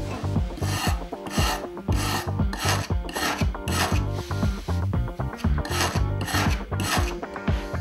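A stiff hand brush scrubbing the rusty steel blade of garden hedge shears in quick back-and-forth scratchy strokes, cleaning rust and grime off the blade, with a short pause near the middle. Background music plays underneath.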